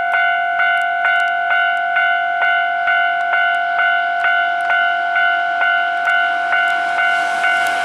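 Japanese railway level-crossing warning bell ringing, a steady tone struck again about twice a second: the crossing is closed for an approaching train.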